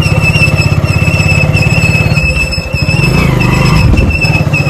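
Two-wheeler's engine running steadily while riding, a fast low pulsing rumble with a steady high-pitched whine above it.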